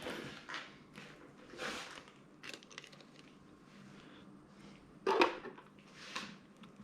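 Irregular handling noises: short rustles and light clicks, with one louder knock about five seconds in.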